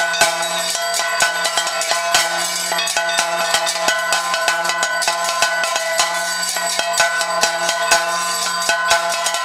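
Temple bells ringing continuously for the arati (lamp offering), their tones held throughout, with sharp, irregular percussion strikes over them.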